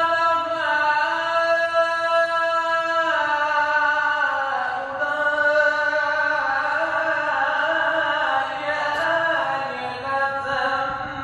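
A male Quran reciter (qari) chants in the melodic, ornamented recitation style into a handheld microphone. He holds one long steady note for about three seconds, then winds the phrase down through several stepped pitches in ornate runs.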